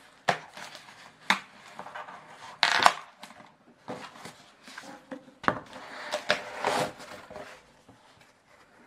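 Corrugated cardboard box being torn open along its strip and handled: scraping, tearing and sharp knocks of cardboard, loudest about three seconds in and again in the second half.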